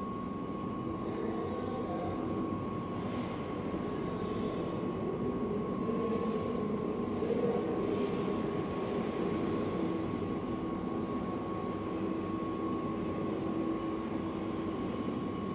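Steady machine drone with a constant high whine, from a hydraulic hose skiving machine stripping the rubber cover off a hose end, with faint scraping every couple of seconds.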